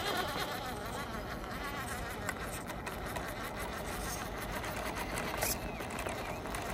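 Small electric motor and gearbox of a 1/18-scale RC crawler whining as it crawls over rocks, the pitch wavering up and down with the throttle.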